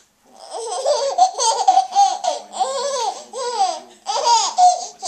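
A woman laughing hard in a long run of high-pitched peals, starting about half a second in.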